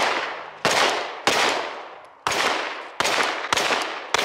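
Aeonic Arms Alpha Comp, a steel-framed Glock pistol, fired six times in a steady unhurried string, roughly one shot every half second to second. Each shot is followed by a long decaying echo.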